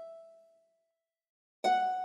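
Slow, sparse keyboard music: a single note rings and fades away in the first second, there is a short silence, and a new note is struck near the end.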